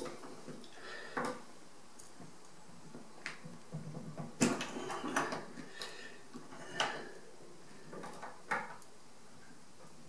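Metal clicks and clinks of a spanner working on a radiator valve's compression nut as it is tightened onto 15 mm copper pipe: a handful of separate knocks, the loudest about four and a half seconds in.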